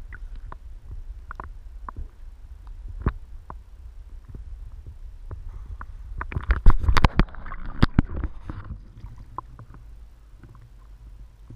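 Seawater sloshing and lapping right at a waterline microphone, a steady low rumble with scattered sharp clicks and knocks. About six seconds in comes a louder burst of splashing and knocking that dies away before nine seconds.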